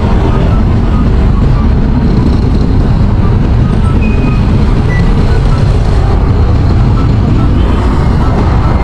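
Small motorcycle riding in slow traffic, heard through a helmet-mounted microphone: a loud, steady rumble of engine and wind noise.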